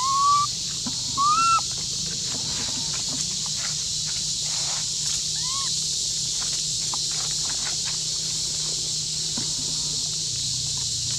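Baby long-tailed macaque giving short, high calls that rise then fall in pitch: two loud ones near the start and a fainter one about five and a half seconds in, over a steady high hiss.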